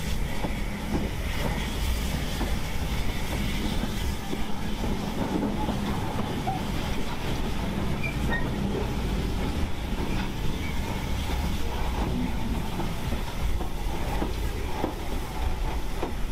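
Small steam tank locomotive running slowly along the track, heard close from its footplate: a steady rumble with occasional light clicks from the wheels and rails.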